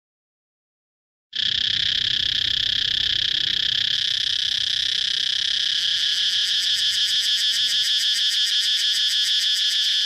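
A chorus of periodical cicadas buzzing: a loud, steady, high insect drone that cuts in abruptly about a second in, with a fast pulsing running through it.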